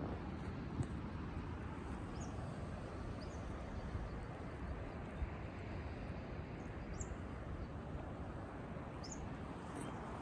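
A steady rushing of wind and sea surf, with a handful of short, high bird chirps scattered through.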